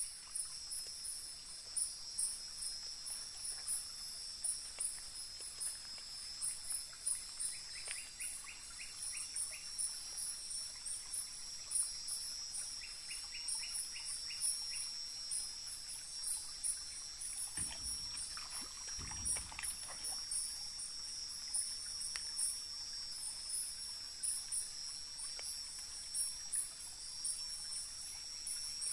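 Night insect chorus: a steady high buzz with rapid high-pitched chirping over it. Twice a short run of lower, quick clicking pulses comes in, and past the middle there is a brief rustling disturbance.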